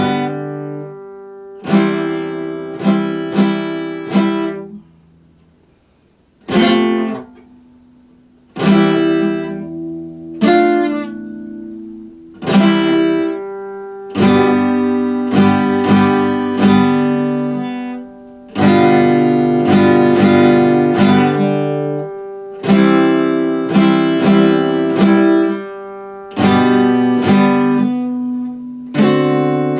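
Epiphone acoustic guitar played in chords, each strum ringing out and fading, in loose phrases. About five seconds in the playing dies away almost to silence for a second or so, then picks up again.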